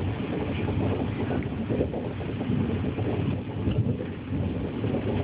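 Cabin noise inside a Chinese D-train, a CRH electric multiple unit, on the move: a steady rough rumble of the running gear on the rails with air rushing past the carriage.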